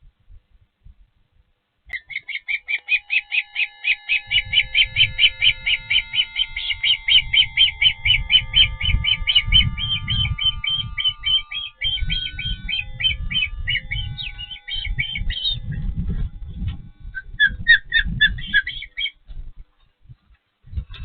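Osprey calling at the nest: a long run of rapid, high whistled chirps, about five a second, starting about two seconds in and breaking up into looser, uneven notes near the end. A low irregular rumble runs underneath.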